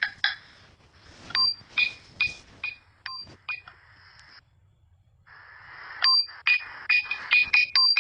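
A rapid series of short, high-pitched pings. They stop briefly a little past the middle, then return faster and closer together.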